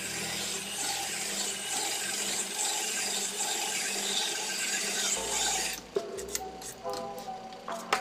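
Vertical cylinder boring machine running with a steady rasping hiss as its cutter works the bore of a motorcycle cylinder block. The hiss stops about three-quarters of the way through, followed by sharp metallic clicks and clinks as the fixture is handled.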